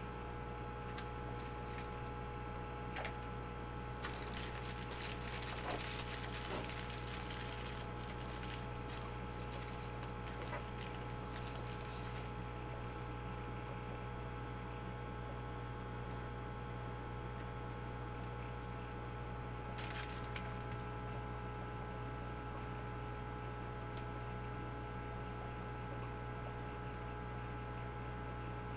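A steady electrical hum throughout, with a stretch of light rustling and small clicks from about four to twelve seconds in, and another brief rustle about twenty seconds in.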